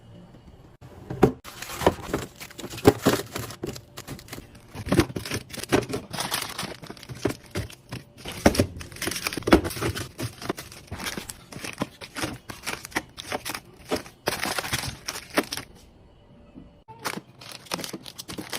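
Plastic packaging crinkling while containers and bottles are handled and set down to restock a fridge, a dense, irregular string of clicks, taps and knocks with a brief lull near the end.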